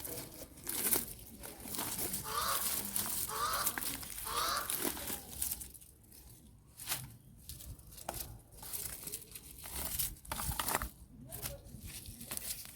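Rustling, tearing and snapping of leafy bean plants being pulled up by hand. About two to five seconds in, a bird calls three short times.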